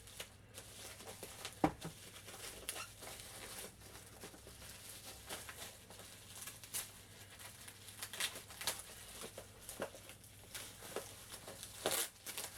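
Scattered light taps, clicks and crinkles of packaging being handled as boxed Funko Pop figures are taken out and turned over, with a sharper knock a couple of seconds in and another near the end.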